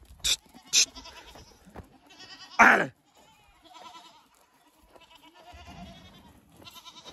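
Goats bleating in wavering calls while the herd is driven around the pen, with one louder call about two and a half seconds in. A few sharp knocks come in the first second.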